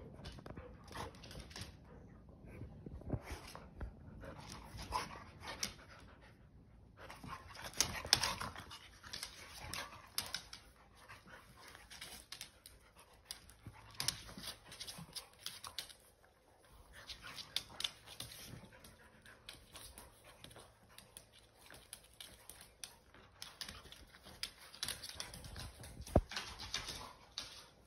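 An adult dog and a puppy playing rough: panting and scuffling, with claws clicking and skittering on a hardwood floor in irregular bursts. The loudest knocks come about 8 seconds in and near the end.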